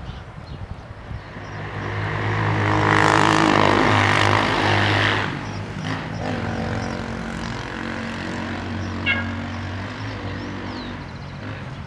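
An engine drones steadily. It swells to its loudest in the first few seconds, drops off sharply about five seconds in, then carries on more quietly.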